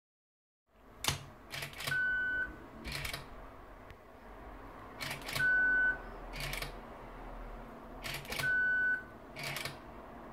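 Nikon DSLR firing three times on an IR remote signal from an Arduino transmitter. Each round has a short steady beep and sharp shutter-and-mirror clicks, repeating about every three and a half seconds.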